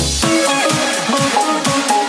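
Electronic dance music: about a quarter second in, the deep bass drops out and a fast, repeating pulse pattern takes over.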